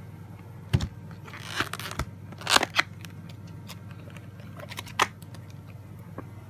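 Plastic Walt Disney VHS clamshell case being handled and opened: sharp clicks and knocks of the plastic shell, loudest about two and a half seconds in, with a brief rustle early on the way.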